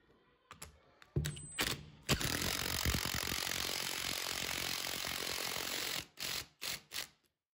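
Cordless driver with a long bit extension driving a screw through a metal trunking clip into the wall: two short starts, then a steady run of about four seconds, then a few short blips as the screw is snugged home.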